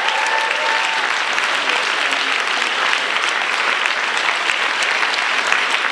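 Audience clapping steadily across a large room, with a single voice calling out briefly in the first second.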